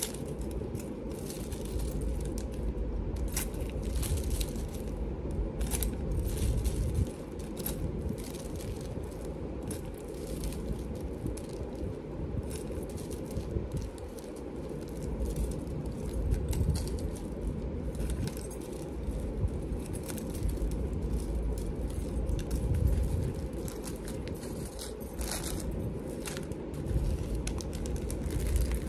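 Small metal jewelry findings clinking and rattling as they are handled and sorted by hand, with many scattered sharp clicks over a steady low background rumble.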